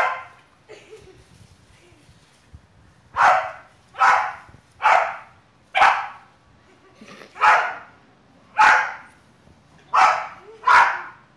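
A bulldog barking in play over a soccer ball: a run of about eight short, sharp barks, spaced a second or so apart, starting about three seconds in after a quiet spell.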